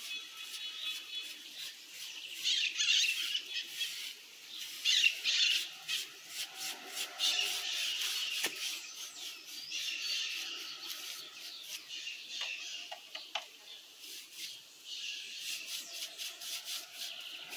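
Paintbrush bristles scrubbing varnish onto a textured mortar surface: scratchy rubbing strokes in uneven runs with short pauses.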